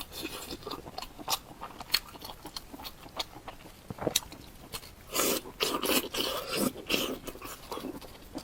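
Close-miked eating sounds: a person chewing and biting with many sharp wet mouth clicks, growing into a denser, noisier stretch of chewing from about five to seven seconds in.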